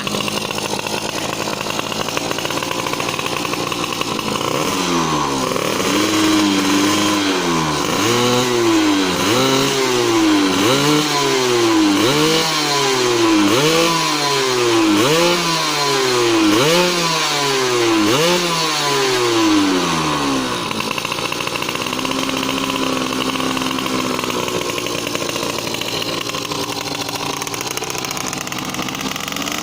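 Two-stroke underbone motorcycle engine running during a tune-up: it idles, then is revved in a steady series of about a dozen short throttle blips, each rising and falling, for some fifteen seconds, and settles back to idle near the end.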